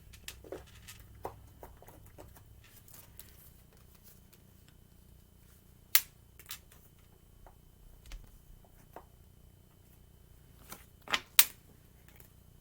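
Tarot cards being handled on a table: scattered light clicks and taps, with sharp snaps about six seconds in and twice in quick succession near the end.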